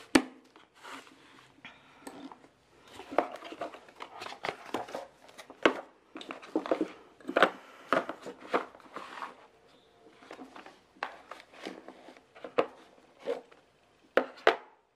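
Handling noises of a pedal unboxing: irregular clicks, light knocks and short rustles as the quick-release pedals, their key and the packaging are picked up and moved about.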